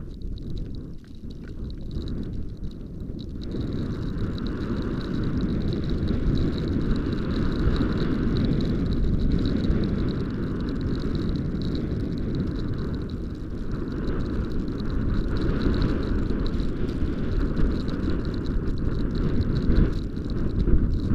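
Wind buffeting the microphone of a camera carried downhill on a snowy ski trail: a steady low rumble that builds over the first few seconds as speed picks up, then holds.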